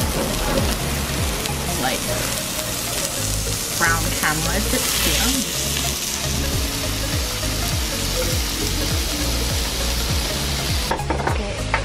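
Beef slices sizzling on a hot Korean barbecue grill plate, a steady frying hiss that is loudest around the middle. A low, steady beat of background music runs underneath.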